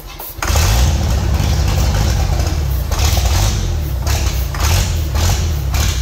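REO/Continental sawmill power-unit engine turning over and firing on ether starting fluid, with an uneven low rumble. The sound dips briefly about half a second in, then comes back up and holds.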